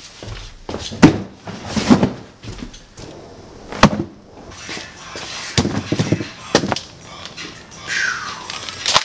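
Cardboard shipping boxes being carried, handled and set down on a concrete floor: a string of sharp knocks and thumps, with cardboard rustling and scraping between them.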